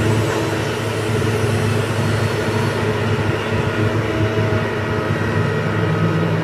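Komatsu PC150 excavator's diesel engine running steadily under hydraulic load as the machine swings and lowers its bucket to dig, a continuous low drone.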